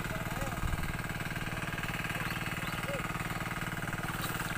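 A small engine running steadily at idle, a fast, even chugging that holds the same pitch and level throughout.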